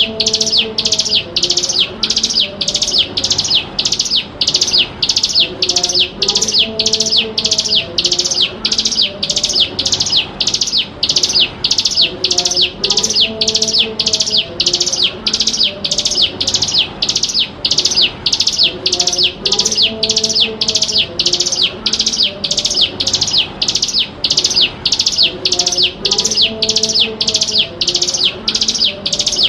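Ciblek gunung (hill prinia) calling: an unbroken, evenly spaced string of sharp, high notes, about one and a half a second, as played on a lure recording. Faint lower tones repeat underneath every six or seven seconds.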